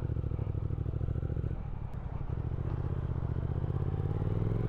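Triumph Speed Twin 1200's parallel-twin engine pulling away under acceleration, its note climbing steadily in pitch and getting louder, with a short break in the note about a second and a half in.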